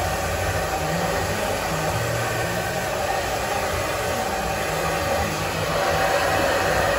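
Handheld hair dryer blowing steadily during a salon blow-dry with a round brush: a continuous rush of air with a faint motor whine.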